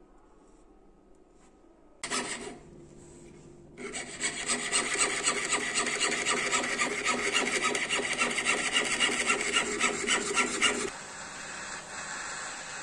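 Jeweller's piercing saw cutting through silver sheet held on a wooden bench pin, in quick, even rasping strokes. Near the end this gives way to the steady hiss of a small gas torch flame.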